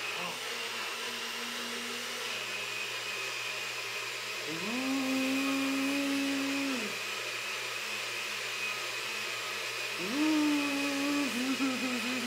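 Small kitchen blender puréeing blueberries for baby food: a steady whir, with the motor revving up to a higher held pitch and winding back down, about four seconds in and again near the end, the last time in short pulses.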